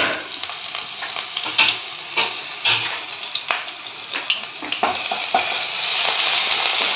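Ginger-garlic paste and chopped green chillies sizzling in hot oil in a frying pan, with scattered crackles and pops. The sizzle grows louder and steadier near the end as a wooden spatula stirs them.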